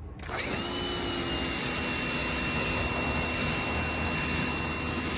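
Pressure washer starting up: its whine rises in pitch just after the start and settles within about a second into a steady high whine over a loud spray hiss.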